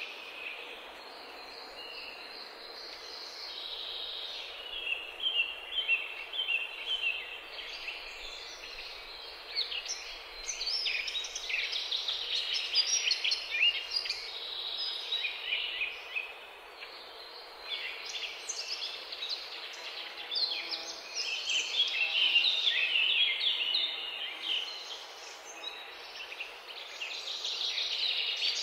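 Birds chirping and singing without a break: many short, high notes in quick runs, loudest around the middle and again near the end.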